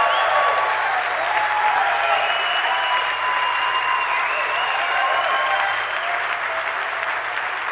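Concert audience applauding after a song ends, with whistles sliding over the clapping. The applause holds steady and eases slightly near the end.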